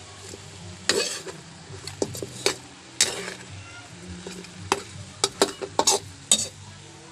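Metal spatula scraping and knocking against a metal wok while pork hock pieces are stirred and sautéed, with a light sizzle underneath. The scrapes come irregularly and grow more frequent in the second half.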